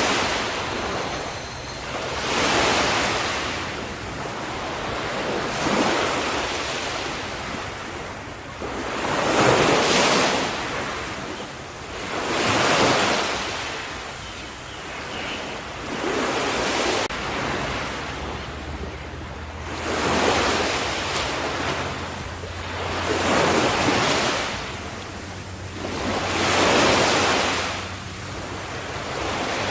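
Ocean waves breaking on the shore, one after another. Each swells up and washes away over a couple of seconds, with a new wave every three to four seconds.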